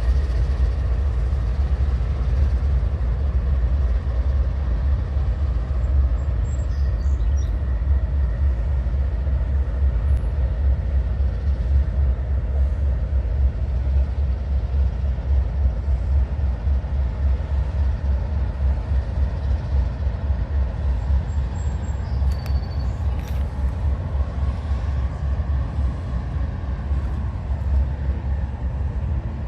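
Train rolling past with a steady low rumble, a few faint high squeals coming and going.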